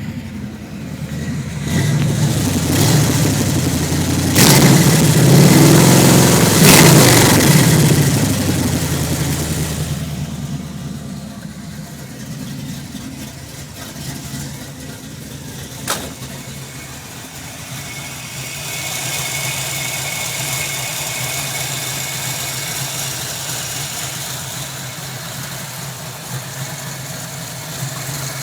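1991 Ford Mustang engine revved up for several seconds, then falling back to a steady idle; the car has a misfire. A single sharp click about halfway through.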